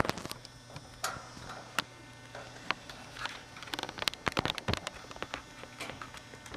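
Nut driver clicking and scraping on the screws of an air conditioner condensing unit's sheet-metal electrical panel as the screws are backed out: irregular sharp taps, thickest in a quick flurry a little past the middle.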